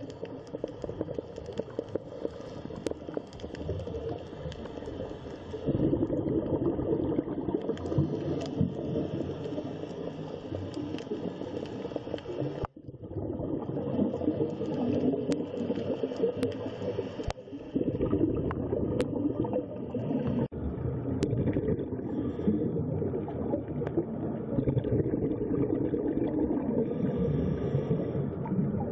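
Underwater ambience picked up by a submerged microphone: a muffled low rumble with bubbling and gurgling. It changes level abruptly several times, jumping louder about 6 s in and dropping out for an instant about 13 s in.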